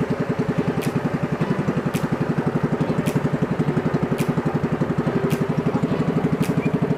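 Motorized bangka's boat engine running steadily under way, with a fast, even putter. A sharp tick comes about once a second.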